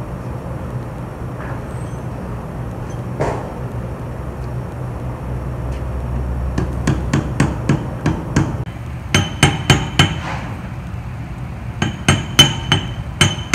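Hammer striking a steel tubular bearing driver, tapping the separator shaft's upper ball bearing onto the shaft and into its housing. Light taps, about four a second, begin about halfway through, then give way to louder, ringing metallic strikes in two runs with a short pause between, over a steady low hum.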